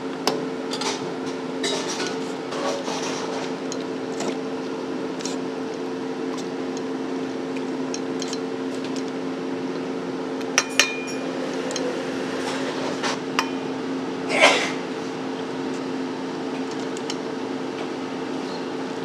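Stainless-steel ladle clinking and scraping against a steel pot and a mesh strainer as sauce and shrimp are scooped, with scattered sharp clinks, a quick double clink about halfway through and a louder scrape a little later. Under it runs a steady hum.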